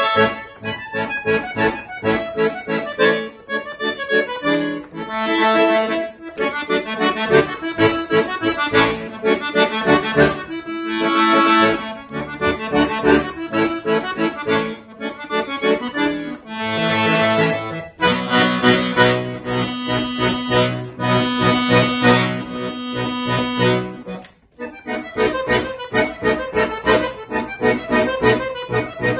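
Solo accordion playing a piece, quick runs of notes mixed with sustained chords; the playing breaks off briefly about 24 seconds in, then carries on.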